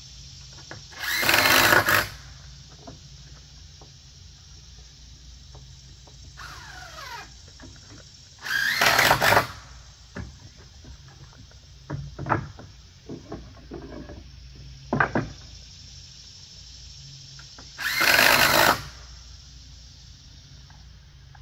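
Cordless power drill driving screws into wooden deck balusters in three bursts of about a second each, with small knocks and clicks of handling wood between them.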